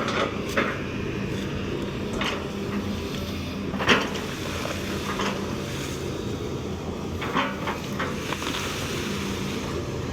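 Excavator diesel engine running steadily, with a handful of sharp knocks and cracks from the machine at work, the loudest about four seconds in.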